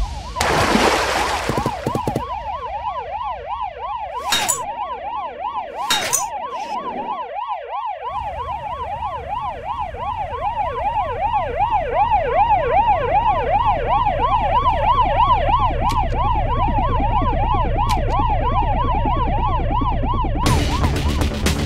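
Cartoon police sirens wailing in a fast, even up-and-down yelp. A low rumble builds under them from about a third of the way in. A short rushing noise comes near the start.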